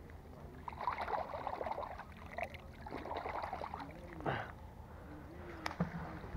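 Water splashing and dribbling in two short spells, with a couple of sharp clicks and knocks from handling a wet plastic toy just pulled out of the canal.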